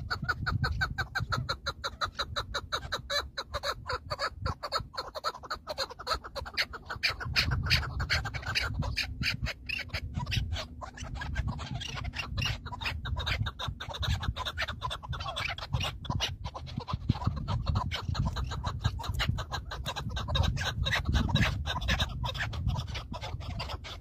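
Chukar partridges calling: a long, continuous run of rapid, repeated short chuk notes, several a second.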